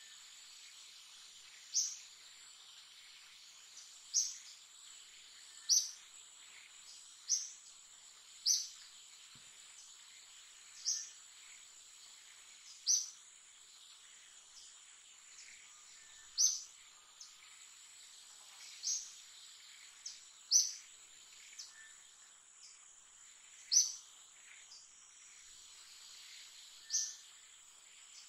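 Steady high-pitched insect drone, with short, sharp high chirps repeating every one and a half to three seconds.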